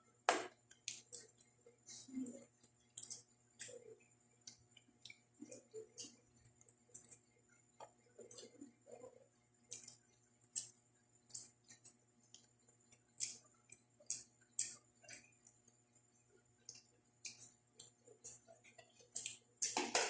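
Mouth sounds of a person eating roast chicken up close: irregular short, sharp clicks and wet smacks of chewing and lip smacking, a few each second.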